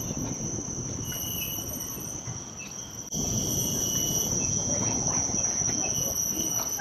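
Rainforest insects giving a steady high-pitched drone, with fainter higher and lower shrill tones that come and go, over a low rumbling hiss. The sound dips briefly about three seconds in, then returns a little louder.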